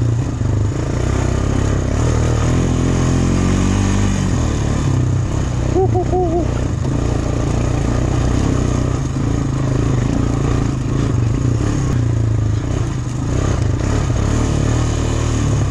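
Honda Recon 250 ATV's single-cylinder engine running steadily at trail speed over rocks, the revs rising briefly about three seconds in.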